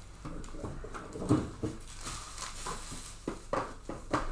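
Trading card packs being handled and opened on a table: a scatter of light clicks, taps and knocks.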